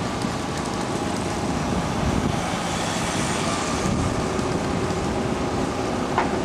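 Motor vehicle engine running at an even speed, a steady drone with no revving.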